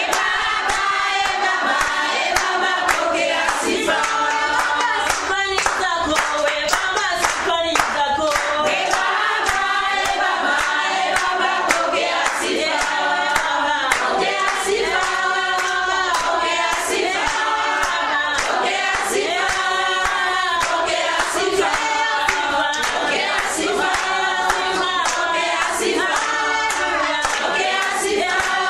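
A choir singing a Swahili worship song in harmony, with hand clapping keeping a steady beat.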